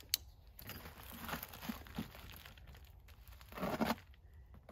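Clear plastic wrapping on a parcel being cut and torn open with a knife: crinkling and tearing plastic, with a sharp click at the very start and a louder tearing rustle near the end.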